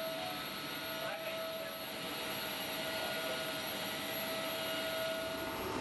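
Steady rush of aircraft machinery noise in a C-17 Globemaster III's cargo hold: an even hiss with a constant mid-pitched whine on top.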